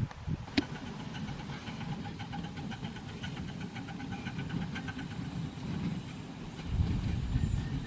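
Live-steam model locomotive running on its track with a low rumble. About half a second in there is a sharp click, followed by rapid, evenly spaced metallic ringing pulses for about four seconds. The rumble grows louder near the end.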